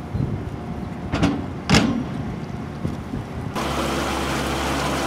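Wind rumbling on the microphone with two sharp knocks, the second the loudest, then an abrupt switch about three and a half seconds in to a steady engine hum under a hiss.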